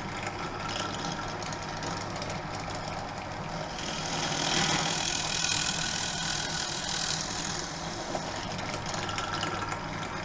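Drill press motor running steadily, its twist bit boring a hole through a wooden strip from about four seconds in. The cutting makes it louder and noisier for about three seconds, then it settles back to the plain motor hum.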